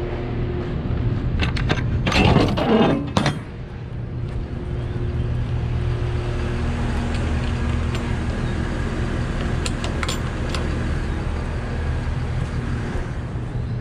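Yard truck's diesel engine running steadily. A loud burst of rattling and clinking comes about two seconds in, and a few sharp clicks come later.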